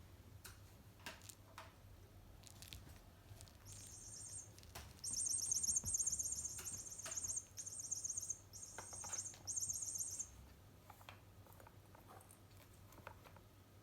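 Electronic cat toy chirping like a bird: a series of rapid, high-pitched trills in about five bursts, starting about four seconds in and stopping around ten seconds, among scattered light clicks and taps.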